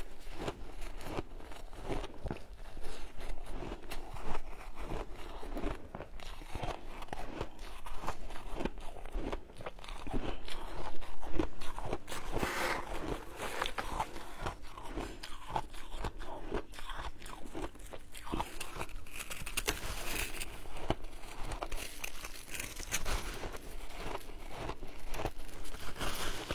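Shaved ice crunching as it is bitten and chewed close to the microphone, mixed with crunching as a spoon and gloved hand dig packed ice out of a tray. A run of louder crunches comes about ten to twelve seconds in.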